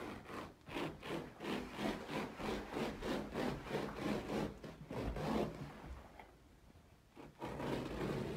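A hand rubbing back and forth across cut-pile carpet, about two to three scratchy strokes a second. The strokes pause about five and a half seconds in and start again near the end.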